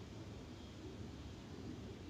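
Faint, steady outdoor background noise, mostly a low rumble, with no distinct sound events.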